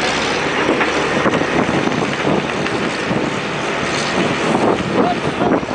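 Dump truck's engine running loudly and steadily, a dense drone without clear breaks.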